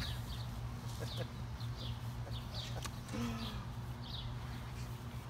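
A small bird chirping over and over, each a short falling chirp, about two a second, over a steady low hum.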